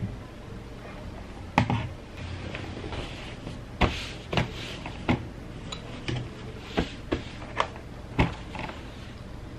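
Ironing noises: a steam iron being picked up, set down and pushed over fabric on an ironing board, giving about nine sharp clunks and knocks at uneven intervals, with cloth rustling between them over a low steady hum.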